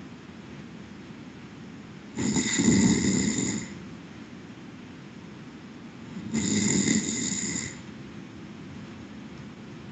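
A sleeping person snoring in a slow, regular rhythm: two snores about four seconds apart, each lasting about a second and a half.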